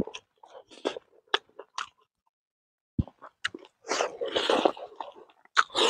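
Close-up eating sounds of a man chewing rice, roasted pork and small fish by hand: irregular chewing and mouth noises with sharp clicks, broken by about a second of dead silence two seconds in, then louder bursts of chewing.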